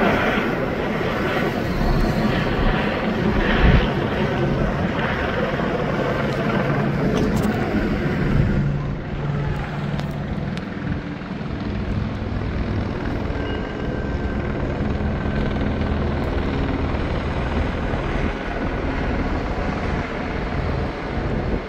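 Helicopter overhead: a steady rotor and engine drone, easing off slightly after about eight seconds.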